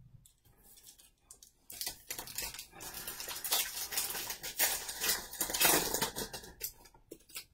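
Baseball card pack being opened and the cards handled: dense crackling and rustling with sharp clicks, starting about two seconds in and stopping just before the end.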